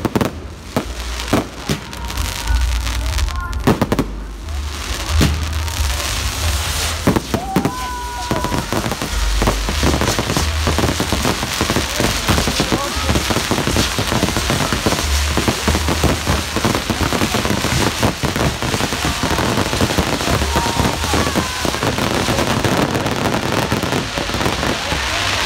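Aerial fireworks bursting: separate sharp bangs for the first few seconds, then from about five seconds in a dense, unbroken crackling barrage of many shells going off at once.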